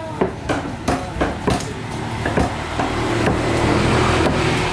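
Knife chopping through a raw fish fillet onto a wooden chopping block, about three sharp strikes a second. From about three seconds in, a steady engine drone grows louder over the chopping.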